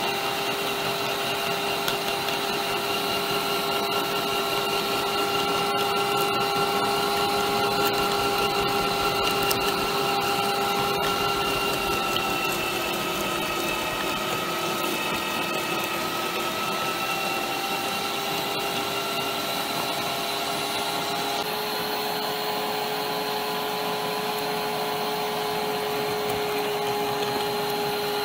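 Bosch 2000 W electric meat grinder's motor running steadily with a whine. The pitch sags a little midway, then steps up slightly about two-thirds of the way through.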